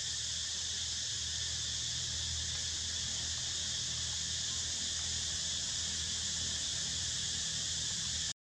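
Steady high-pitched chorus of insects, unchanging throughout, with a low steady rumble underneath.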